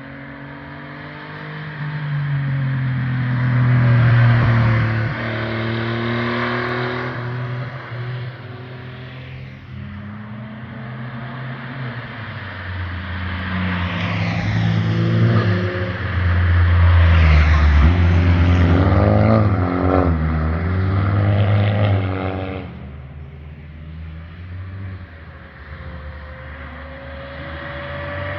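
Performance cars driving past one after another on a winding road, engines revving up and dropping through gear changes. The loudest passes come about four seconds in and again from about sixteen to twenty-two seconds, then the sound falls back to a quieter engine drone.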